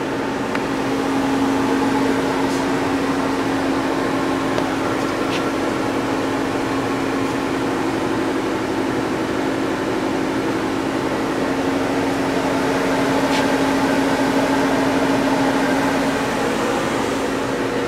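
Steady machinery hum with one strong low tone and a few faint clicks, the low tone fading near the end.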